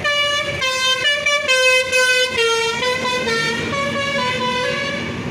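Bus telolet horn of the basuri type playing a quick tune of short notes stepping up and down, growing fainter over the last two seconds.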